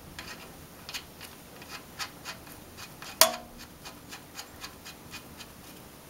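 Light, irregular metallic ticks and rubbing as the oil drain plug is threaded by hand into a Yamaha FZ6 motorcycle engine, with one sharper metallic click about three seconds in.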